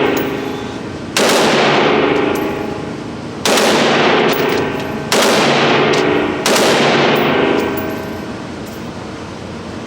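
Rifle fire: four loud shots or short bursts, each with a long ringing tail, coming about every one and a half to two seconds.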